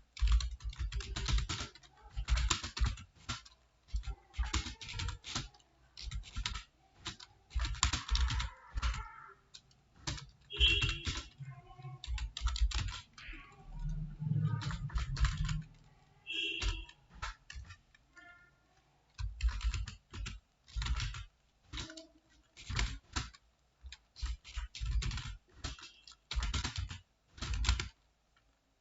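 Computer keyboard typing in quick runs of keystrokes, with a short pause a little past halfway.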